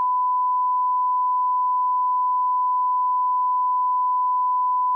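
A steady electronic beep tone held at one unchanging pitch and level, a pure sine tone like a test tone.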